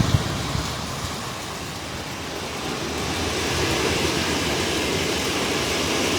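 Hurricane-force wind blowing hard and steadily, buffeting the microphone with a low rumble at the start and swelling again about halfway through.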